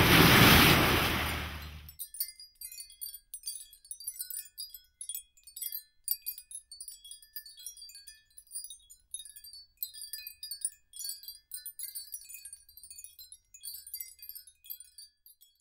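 A loud rushing noise cuts off about two seconds in, and sparse, irregular, high tinkling chime notes like wind chimes carry on over a soundtrack, stopping just before the end.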